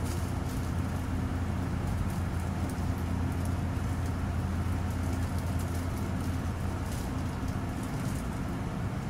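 Running noise heard from inside an Osaka Metro New Tram, a rubber-tyred automated guideway train, as it moves slowly along its concrete guideway. A steady low hum and rumble, with faint scattered ticks.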